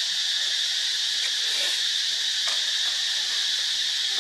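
Steady high-pitched drone of insects in the foliage, with a couple of faint short sounds over it.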